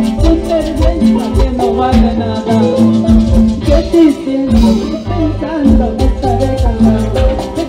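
Live band playing an instrumental passage of a Latin dance tune: electric guitars, bass guitar and percussion over a steady beat. The bass drops out briefly about four seconds in, then comes back.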